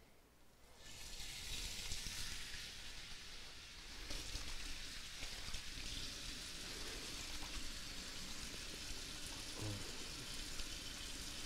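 Raw chicken pieces sizzling in very hot oil in a frying pan. The steady hiss starts about a second in, as the chicken goes in, and gets a little louder about four seconds in.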